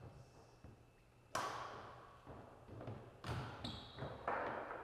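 Badminton rally: sharp hits of a racket on a shuttlecock, three of them a second or two apart, each ringing in the reverberant hall, with a short high squeak near the end.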